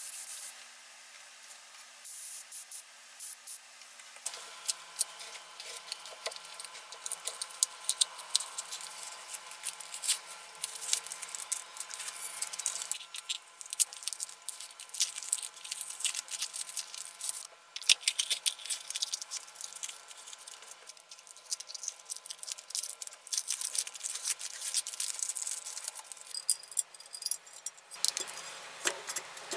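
A gravity-feed paint spray gun hisses in short spurts at the start. Then, for most of the time, masking tape crackles and rustles as it is peeled off freshly painted metal parts, with small handling clicks.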